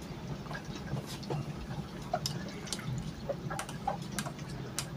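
Small water sounds, drips and light clicks a few times a second: a paintbrush being rinsed and tapped in a jar of water. A steady low electrical hum runs underneath.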